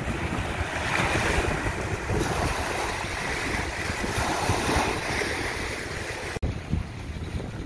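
Gusty wind rushing and buffeting the microphone, a steady noisy hiss with irregular low rumbles. The sound briefly cuts out about six and a half seconds in.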